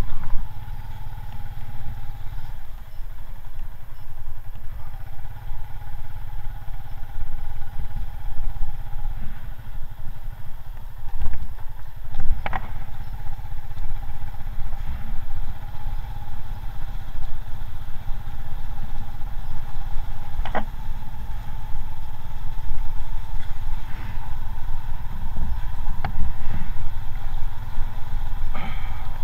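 Motorcycle engine running steadily on the move, with a low rumble of wind on the action camera's microphone. There are sharp clatters about 12 and 20 seconds in and again near the end.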